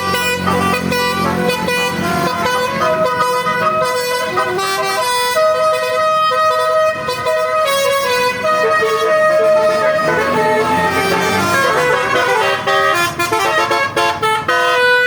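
Indonesian bus 'telolet' horn: a multi-tone musical air horn playing a tune of held notes that step from pitch to pitch without a break.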